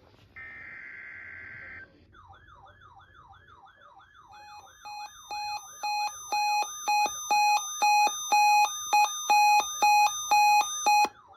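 Emergency alert tones: a short burst of digital data-header tones, then an alarm with a warbling siren tone sweeping up and down about twice a second. From about four seconds in, a pulsed beep comes in at about two a second and grows steadily louder, then cuts off near the end.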